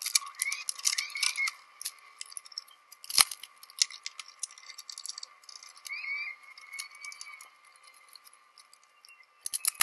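Metal bar clamps on a glued-up wood assembly being adjusted and tightened: scattered clicks and rattles from the clamp jaws and handles, with one sharper knock about three seconds in, over a faint steady whine.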